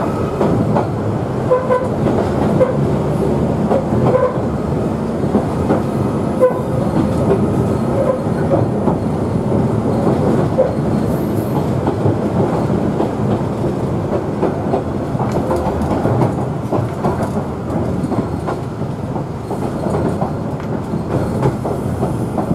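Queensland Rail 2000 class diesel rail motor running along narrow-gauge track, heard from inside its cab. A steady rumble of engine and wheels with rail-joint clicks, and a few brief squeaks in the first several seconds.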